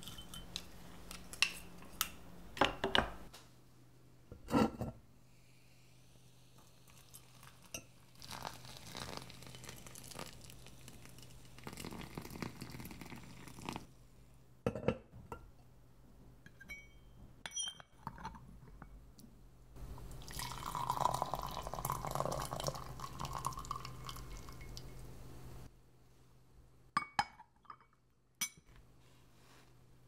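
Porcelain and glass tea ware clinking and tapping in a series of sharp knocks. About two-thirds of the way in, tea is poured in a stream for about five seconds, then a few more clinks follow.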